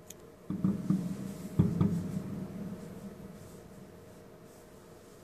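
Fireworks going off: a quick string of deep booms starting about half a second in, the loudest about a second and a half in, then dying away over the next second or so.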